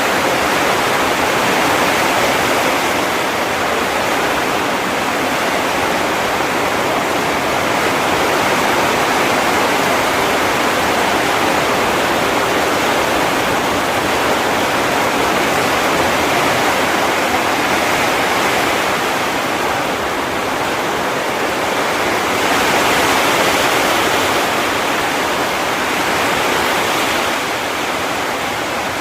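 Heavy rain falling in a steady, dense downpour, an even hiss without distinct drops or thunder.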